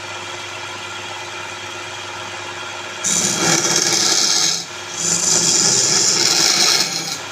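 Wood lathe running with a steady hum; about three seconds in, a turning tool bites into the spinning palm wood, making a loud rasping cutting noise in two passes with a short break between.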